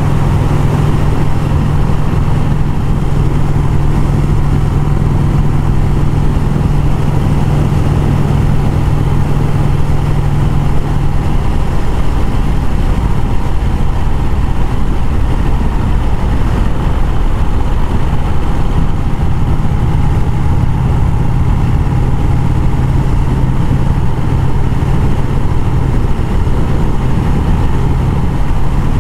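A 1951 Vincent Rapide's V-twin engine running steadily at cruising speed, heard from a camera mounted on the bike, with wind and road noise. The engine note drops a little partway through and stays steady after.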